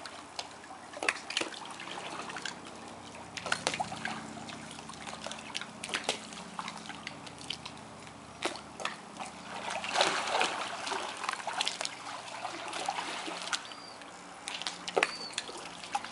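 Swimming-pool water sloshing and trickling as people and a dog move through it, with sharp splashes every second or two. A few short, high chirps near the end.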